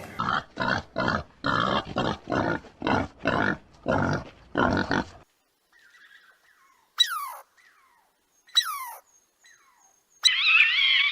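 Pig grunting in a quick series of short, rough grunts, about two a second, for some five seconds. Two sharp calls that fall steeply in pitch follow a few seconds later, and warbling music starts near the end.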